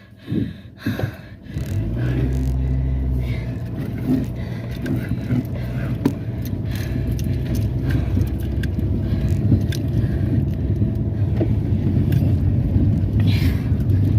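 A few short knocks, then about two seconds in a car engine starts and runs steadily.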